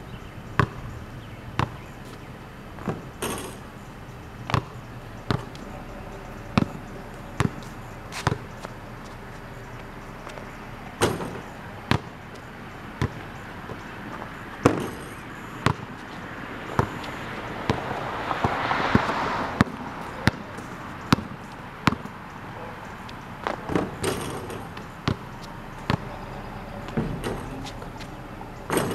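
Basketball bouncing on a concrete driveway: single sharp thuds at an uneven pace, roughly one a second with short gaps, as a player dribbles and shoots around. A swell of noise rises and falls around two-thirds of the way through.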